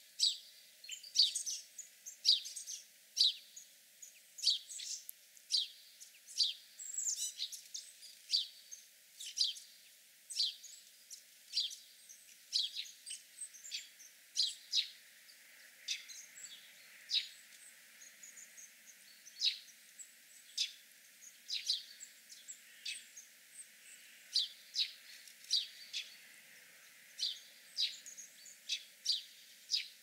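Small songbirds chirping: a continuous run of short, sharp, high chirps, one or two a second.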